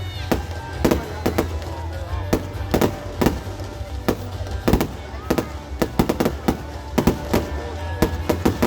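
Fireworks display: aerial shells bursting in an irregular string of sharp bangs, coming thicker and faster near the end, over a steady low rumble.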